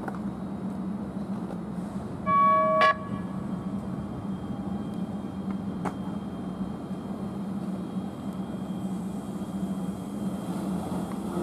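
Siemens P2000 light rail car giving one short horn toot about two seconds in as it pulls slowly away, over a steady low hum, with a couple of faint clicks later on.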